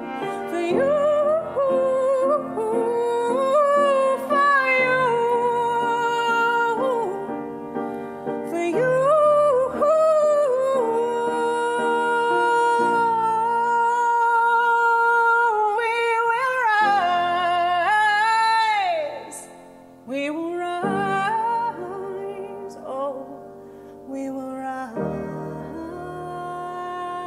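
A woman singing with piano and cello accompaniment, holding long notes. About two-thirds of the way through, a note slides down and the music drops away briefly before she comes back in.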